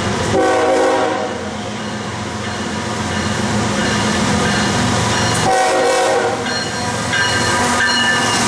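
BNSF diesel freight locomotives approaching and passing close by, sounding the air horn in repeated blasts: one just after the start, one about two-thirds of the way in, and another near the end. The engines' low rumble runs underneath.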